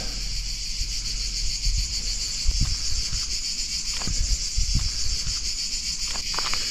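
Cicadas singing in a steady, shrill, unbroken drone, with a few soft low thumps about two and a half, four and five seconds in.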